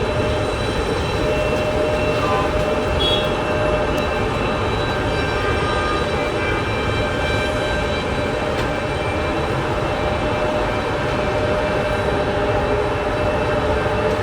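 Steady rumble of a vehicle in motion, with a constant whine running through it and a second, higher whine rising near the end.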